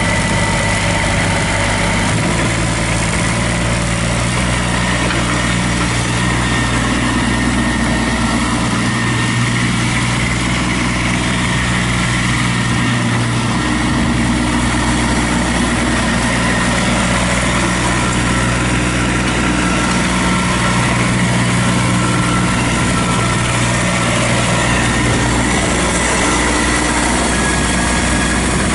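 Kubota B2400 compact tractor's three-cylinder diesel engine running steadily while the tractor is driven, its pitch shifting a few times as the engine speed changes.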